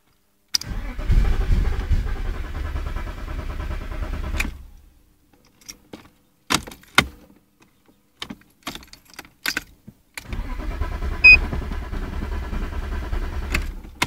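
A supercharged BMW engine cranking on its starter twice, each attempt about four seconds long, turning over without catching, with a few clicks between the attempts. It cranks but won't start because flooded fuel has washed the oil off the cylinder walls and left it too low on compression.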